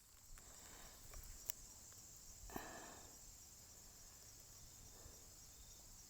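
Faint, steady high-pitched insect chorus, with a sharp click about a second and a half in and a brief rustle about two and a half seconds in.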